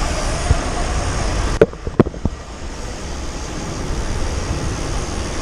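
Wind rushing over the microphone and rolling noise while riding a BMX bike along the street, broken by two sharp knocks about a second and a half and two seconds in, after which the rushing is lower.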